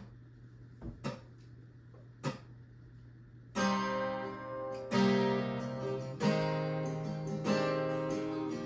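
Acoustic guitar strummed, the song's intro: after a few short clicks, chords start about three and a half seconds in and are struck again roughly every second and a half, each left to ring.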